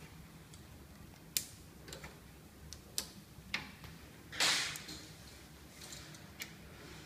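Scattered small sharp clicks and taps from hands handling the 3D printer's extruder parts, with a louder short scraping rustle about halfway through, over a low steady hum.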